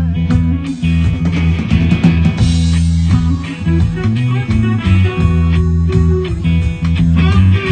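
Live band playing a reggae song without vocals: electric guitar lead over bass guitar and a steady beat.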